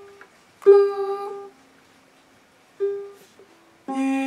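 Luna acoustic-electric ukulele being tuned, with single strings plucked one at a time and pauses between. The same higher note is plucked twice, then a lower string rings out near the end. The instrument is out of tune and is being brought into tune.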